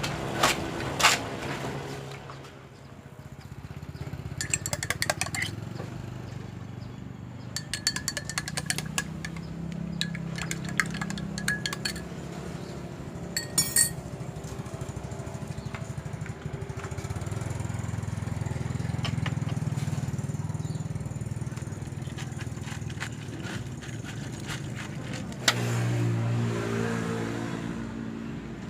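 A small electric motor hums steadily, with bursts of rapid clinking and rattling, like ice and utensils against a cup, at several points.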